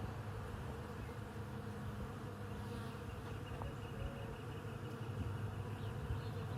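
Many bees buzzing steadily together as they forage on a flowering tree, an even, continuous hum.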